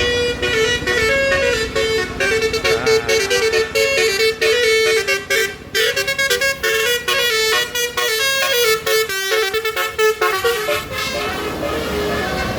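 Bus telolet horn, a multi-tone horn, playing a fast tune of short stepping notes that stops about ten seconds in.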